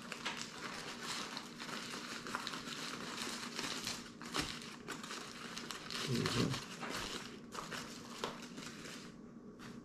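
Foil-lined fast-food burger wrapper crinkling and rustling as it is peeled off a burger and crumpled by hand.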